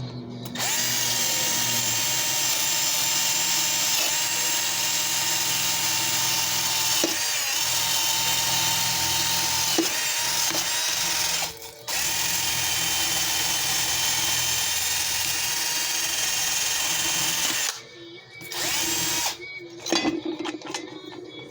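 Electric drill spinning a wheel attachment against a cast iron tea kettle to clean and polish it: a steady motor whine over a grinding hiss. It cuts out for a moment about halfway, stops a few seconds before the end, then runs in one short burst.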